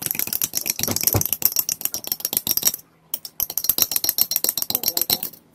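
Metal spoon clinking rapidly against the sides of a glass mug while stirring cornflour into water, with a short pause about three seconds in before the stirring resumes.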